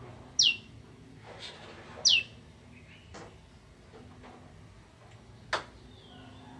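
A prenjak (prinia) giving short, high calls that sweep sharply downward, two loud ones in the first couple of seconds and fainter ones between. A sharp click sounds about five and a half seconds in.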